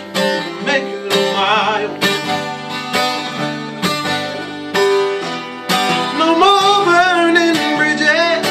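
Acoustic twelve-string guitar strummed in a steady rhythm, with a man's singing voice over it, strongest in the second half.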